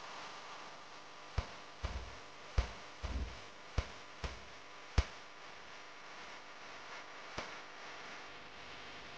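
Quiet passage of the video's audio track: a faint steady hiss with about eight irregularly spaced sharp clicks, a few with a short low thump, spread over the first half and one more near the end.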